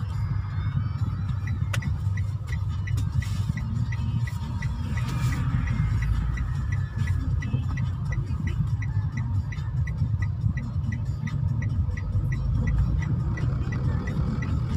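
Inside a car cabin: steady low road and engine rumble while the car creeps through traffic. About a second and a half in, the turn-signal indicator starts ticking steadily, about three ticks a second.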